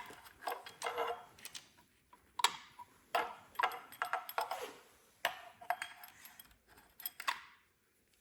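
Metal engine parts and hand tools clinking and tapping together in irregular bursts as a camshaft sprocket and alignment tool are worked into place, the clinks stopping near the end.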